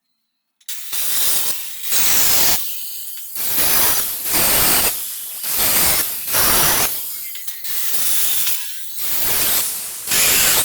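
Rhythmic back-and-forth strokes of a hand tool working wood, about one stroke a second. Each is a loud rasping hiss with a quieter return between. They start abruptly after a short silence.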